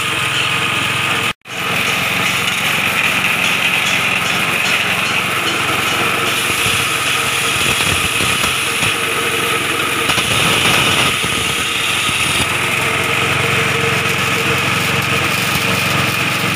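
Palm-sugar grinding machine running steadily, its motor and mill whirring with an even, unchanging pitch as it turns sugar lumps into powdered gula semut. The sound cuts out abruptly for an instant about a second and a half in, then carries on.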